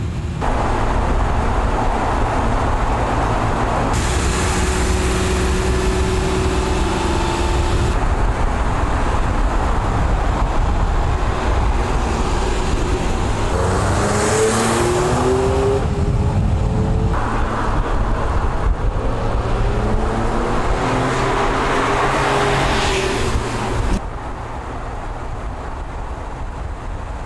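Porsche 911 Speedster (997) flat-six engine driving on the road. It cruises at a steady note, then accelerates with its pitch climbing through repeated upshifts, over tyre and wind noise. The sound changes abruptly several times and is quieter near the end.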